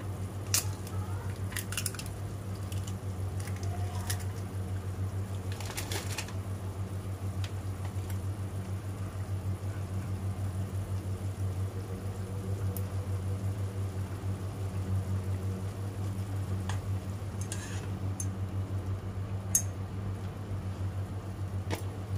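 Instant noodles simmering in a steaming pot, with light clicks and scrapes as wooden chopsticks stir and lift the noodles against the pan, over a steady low hum.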